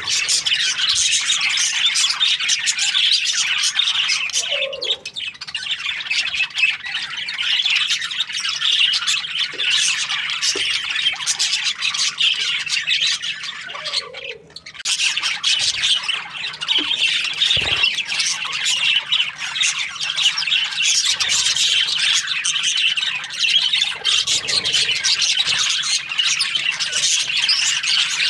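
A flock of budgerigars chattering and chirping continuously, many birds at once, with two short lulls, one about four seconds in and one about fourteen seconds in.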